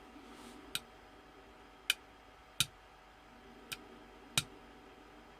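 Five short, sharp clicks, irregularly spaced about a second apart, over a faint background.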